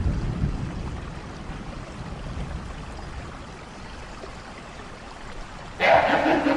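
Rain with a low rumble of thunder that swells at the start and slowly dies away. Near the end a sudden loud, harsh sound cuts in.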